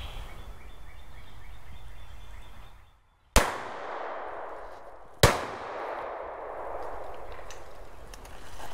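Shotgun fired twice, about two seconds apart. Each shot is a sharp crack followed by a long, fading echo through the trees.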